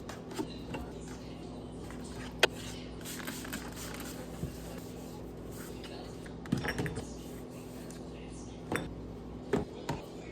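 Food containers and jars being handled and taken out of a refrigerator: scattered clicks, knocks and clinks, the sharpest about two and a half seconds in and a cluster near the end, over a steady low hum.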